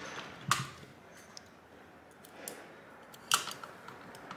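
A hand screwdriver and fingers working on a graphics card's backplate as it is screwed back on. Two sharp clicks come about three seconds apart, the first about half a second in.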